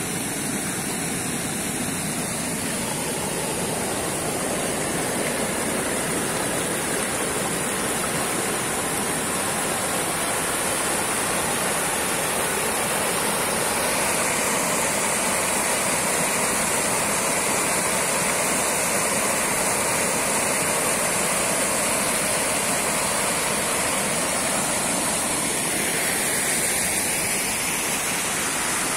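Mountain river rushing over stones and through small cascades, a steady noise of moving water that grows slightly louder about halfway through.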